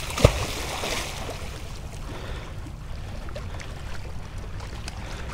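A released black drum splashing at the surface as it swims off, with one sharp slap just after the start and a second or so of spray. After that comes a steady low wash of water.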